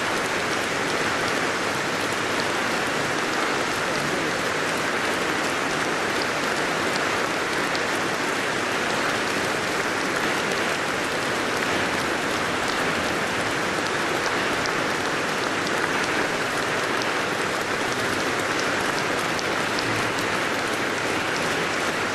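A large audience applauding steadily, dense clapping that holds at an even level without a break.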